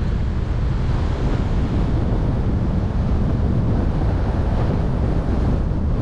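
Steady wind rushing over the microphone with road noise from a car driving along a street.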